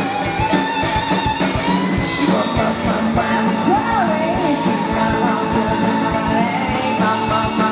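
Live rock band playing a song: a steady drum beat under guitars, with a long held lead melody that wavers in pitch about halfway through.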